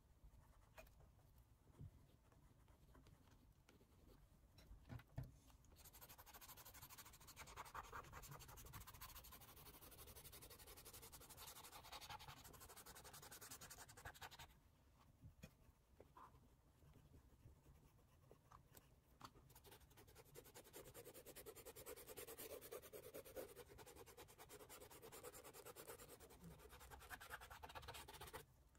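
Faint scratching of a pencil stroking over an oil pastel painting. It comes in two long stretches of repeated strokes, the first starting about a fifth of the way in, with a short pause about halfway.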